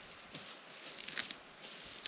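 Steady high-pitched insect drone, with a few light clicks about a second in.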